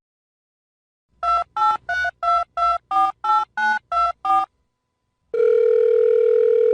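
Touch-tone telephone keypad dialing: ten short two-tone beeps at about three a second. About a second later a single long steady tone starts.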